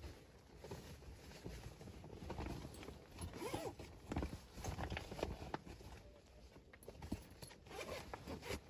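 Wood fire in a box stove crackling with scattered sharp clicks, over a low rumble. Several short calls that rise and fall in pitch come through in the background.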